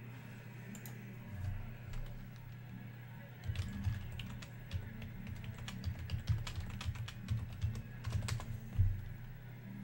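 Computer keyboard typing: a run of quick, irregular keystrokes starting about three and a half seconds in, over a steady low hum.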